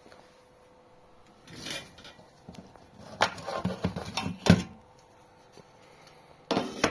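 Objects being handled on a tabletop: a rustle, then a run of sharp knocks and clicks, and another short burst of handling near the end.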